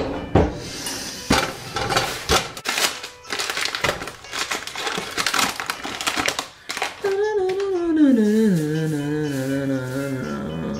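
Paper sugar bag crinkling and rustling as it is opened and sugar is scooped out with a measuring cup. About seven seconds in, a voice hums a long note that slides down and wavers until near the end.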